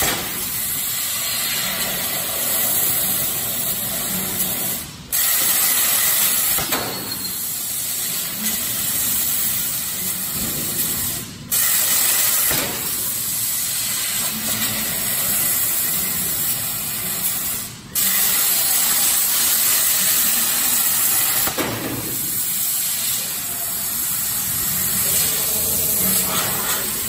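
Hypertherm plasma torch on a CNC cutting table cutting metal plate: a loud, steady hiss of the plasma arc. It cuts out abruptly three times, about six seconds apart, and starts again at once as the torch moves on to the next cut.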